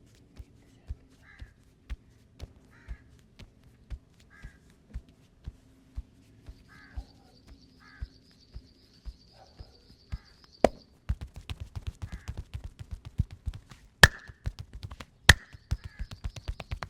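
Hand massage strikes on the head and back: steady slaps about twice a second, then from about ten seconds in a fast, dense flurry of chopping taps with a few louder sharp cracks. Crows caw in the background.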